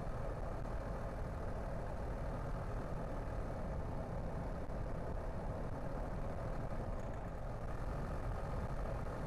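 Steady road noise of a car being driven: engine and tyre drone with no sudden events.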